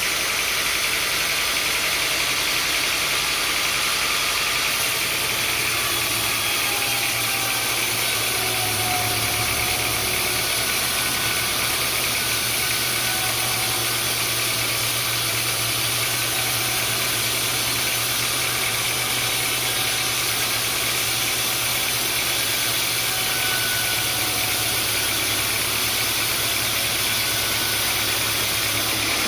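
Sawmill machinery running steadily: a constant engine-like hum with a hiss over it, the low hum growing stronger about five seconds in.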